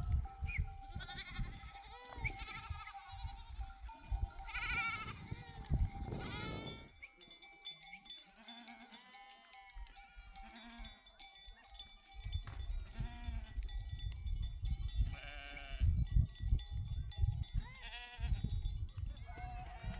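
A flock of sheep bleating, many overlapping calls, with sheep bells ringing among them. A low rumble comes and goes, dropping away for a few seconds in the middle.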